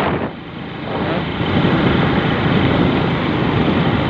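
Wind rushing over the microphone of a moving motorcycle, with its engine running underneath. The rush drops briefly just after the start, then builds again and stays steady.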